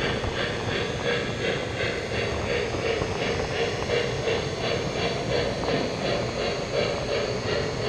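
Three-rail O-gauge model trains running: a steady hum with rhythmic hissing chuffs about three to four times a second.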